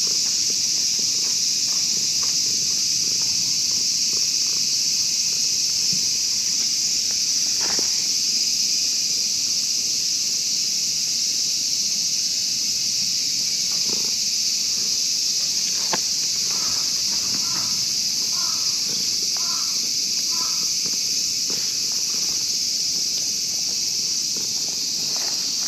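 A steady, high-pitched chorus of summer insects buzzing without a break. About two-thirds of the way through, a bird calls about six times in quick succession.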